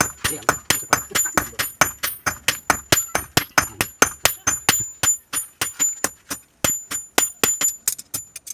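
Hand hammer striking iron on an anvil during forging: a fast, steady run of blows, about four a second, each with a high metallic ring.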